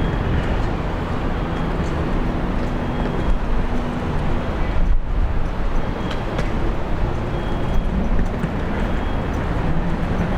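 Steady vehicle and traffic noise: a continuous low rumble with a faint engine hum that comes and goes, briefly dropping about five seconds in.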